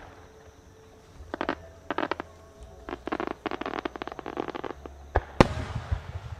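Fireworks: a large aerial shell display, with a few seconds of rapid crackling pops, then two sharp bangs about five seconds in. The second bang is the loudest and echoes away.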